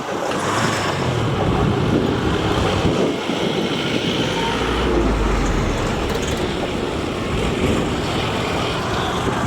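Steady rumble of river boat engines and moving water, mixed with wind buffeting the microphone; a deeper rumble swells about halfway through.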